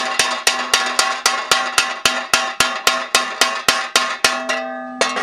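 Hand hammer cold-forging sheet metal on a steel stand: quick, even blows about four to five a second, the sheet ringing between them. The blows stop near the end and the ring fades before one last blow.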